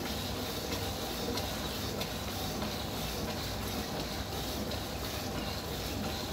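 A water buffalo being milked by hand: streams of milk squirting into a steel bucket, a steady noisy sound with a faint stroke at each squeeze.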